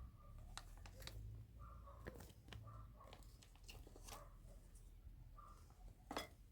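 Faint, sparse clicks and taps of kitchen utensils being handled, with short faint calls recurring every second or two in the background.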